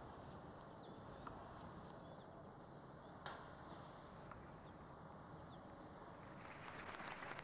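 Quiet outdoor background with a few faint knocks, then a crowd begins applauding about six and a half seconds in.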